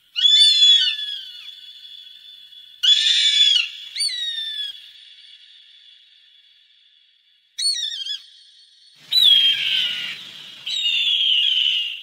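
A hawk calling: a series of about six high, piercing whistled calls, each sliding down in pitch, spaced irregularly a second or more apart.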